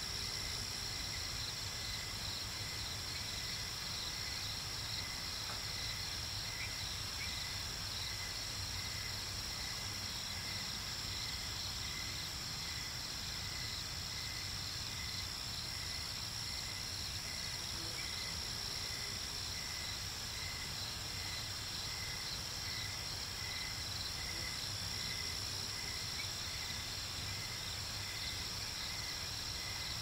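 Crickets chirping steadily: a constant high trill, with a slower run of pulsing chirps beneath it.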